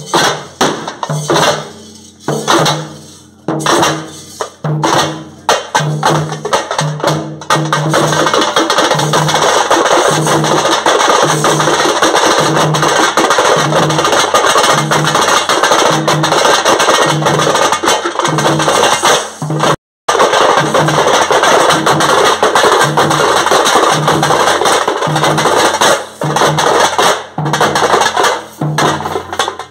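A thappu (parai) drum troupe playing stick-beaten frame drums with a large barrel drum. Sharp, spaced strokes give way after several seconds to fast, dense drumming over a steady low beat about every 0.7 s. The sound cuts out for an instant about two-thirds of the way through.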